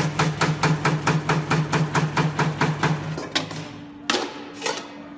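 A factory machine striking rapidly and evenly, about six strokes a second, over a steady hum. It stops about three seconds in, and a few separate knocks follow.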